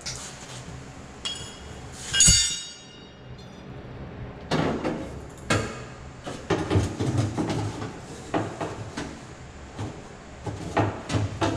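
Metal clinks and knocks from steel body-repair tools and a steel car door being handled: one loud ringing clink about two seconds in, then a run of duller, irregular knocks and rattles.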